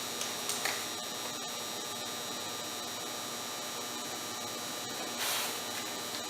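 Steady electrical hum and hiss, with faint handling sounds and a brief louder rustle about five seconds in, as a plastic sheet is pressed down over a caulk bead.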